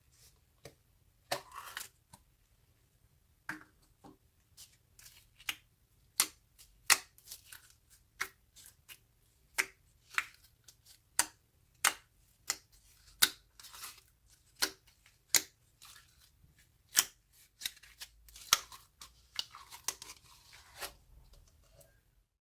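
Slime being squeezed and pressed by hand: an irregular string of sharp, sticky pops and clicks, about one or two a second, stopping suddenly near the end.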